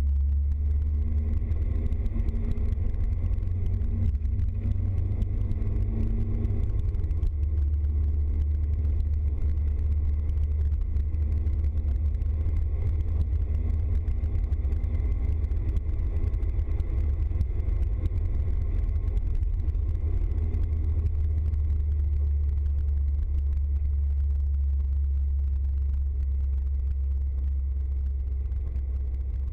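Steady low rumble of a van's engine and tyres on a wet road, heard from inside the cab while driving along.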